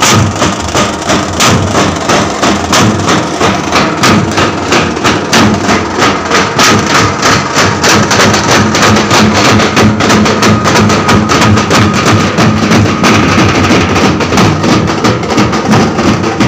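Loud drumming from a street procession drum band, the drums beaten hard in a fast, steady rhythm.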